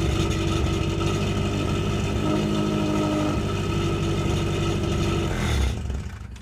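Honda Civic hatchback's four-cylinder engine idling through a newly installed aftermarket exhaust, running rough: an idle problem the owner put down to the spark plugs and suspected ignition timing. The engine shuts off near the end.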